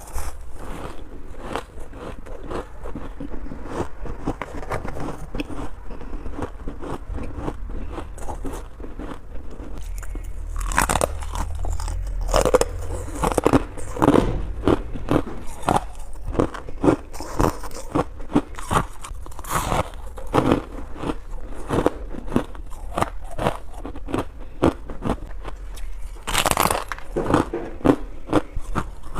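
Close-miked crunching and chewing of hard freezer ice and frost: sharp, irregular crackling bites with a steady low hum under them, and louder bursts of crunching about eleven seconds in and again near the end.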